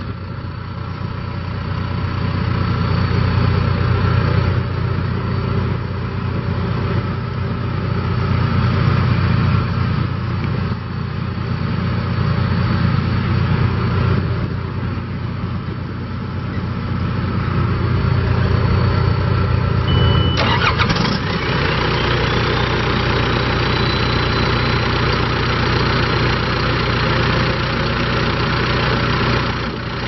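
John Deere 310SJ backhoe loader's diesel engine running steadily, its loudness swelling and easing slowly. About twenty seconds in, the sound changes abruptly to a hissier engine noise with a faint high whine.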